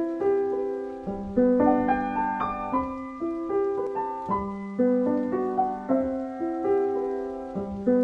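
Intro music: a keyboard playing a gentle tune of chords, each struck and then fading away.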